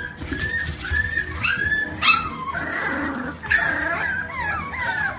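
A dog whining and yipping in a quick series of short, high cries that slide up and down in pitch, with background music.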